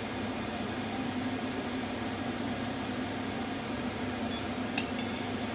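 Steady mechanical hum and hiss, with a single sharp click near the end.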